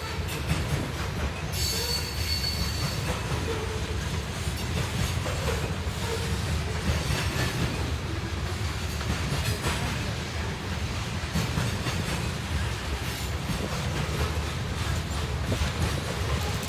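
Grain train's covered hopper cars rolling past with a steady low rumble and wheel noise. A brief high-pitched wheel squeal comes a couple of seconds in.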